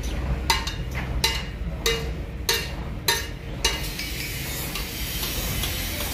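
Hammer blows on metal, about seven strikes roughly half a second apart, each ringing briefly, then stopping about four seconds in. A steady low workshop hum runs underneath.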